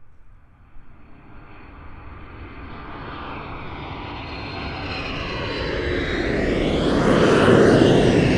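Fixed-wing airplane approaching and flying overhead: its engine noise builds steadily and is loudest near the end, with the tone sweeping and shifting as it comes over.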